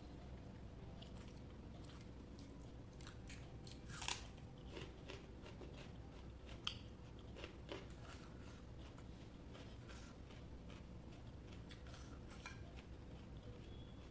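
Faint eating sounds: chewing rice and egg curry, with small scattered mouth clicks and smacks. The sharpest clicks come about four seconds in and again near seven seconds.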